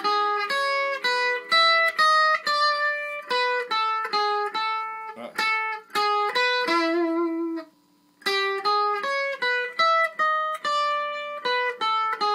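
Electric guitar playing a single-note lead phrase, picked note by note, with a brief pause about eight seconds in before the line carries on.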